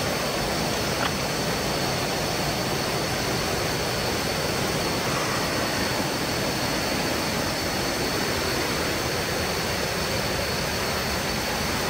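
Steady rushing noise of falling water, even and unbroken throughout, with a faint steady high tone above it.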